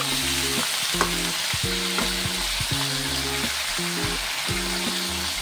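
Pork stomach and vegetables sizzling as they are stir-fried in a wok, with a few clinks of the metal spatula against the pan in the first three seconds. Low background music runs underneath.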